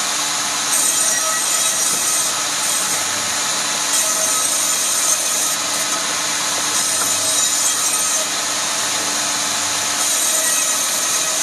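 Power saw cutting rubberwood: a steady motor hum with a noisy cutting sound that grows brighter and hissier in four stretches of a second or two each, as the blade bites into the wood.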